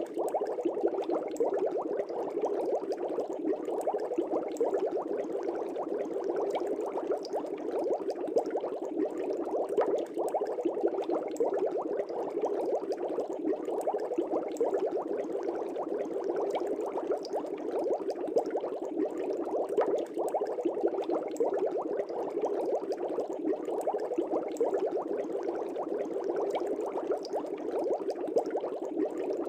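Fish tank air bubbles rising and breaking at the surface, a steady continuous bubbling.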